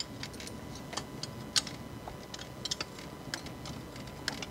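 Hand ratchet wrench clicking in short, irregular runs as a bolt on an engine accessory bracket is worked loose.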